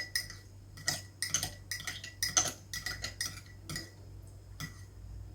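A spoon stirring honey into hot citrus juice in a cup. It clinks against the sides in irregular strokes, about three a second, each with a short ring. The strokes thin out near the end.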